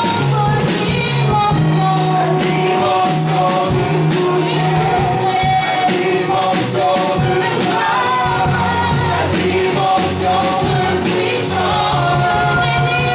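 Live gospel worship song: a lead singer and a group of backing singers over keyboard and electric bass, with held notes and a steady bass line.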